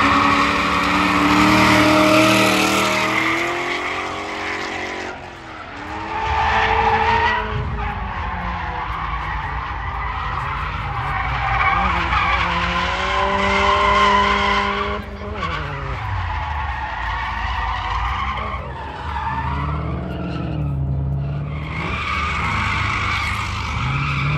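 A drifting car's tyres squealing in long slides while its engine revs rise and fall. There are short let-ups between slides.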